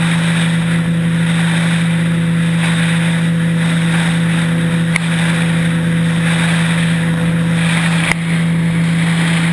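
Motorboat engine running steadily as the boat travels across the lake, a constant hum under the rush of wind and water, with a couple of brief knocks about five and eight seconds in.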